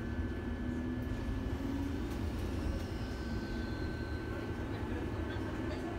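Tram interior noise on the move: a steady low rumble of the running gear, with a faint, thin high tone throughout and a low hum that rises slightly in pitch about a second in.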